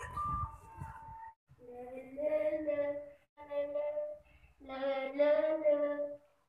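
A short electronic melody ends about a second in, then a child's voice sings three short phrases of held notes.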